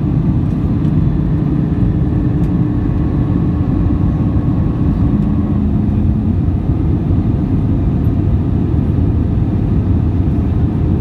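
Steady, loud cabin rumble of an Airbus A320-200 in flight, engine and airflow noise, with a few faint steady tones over it.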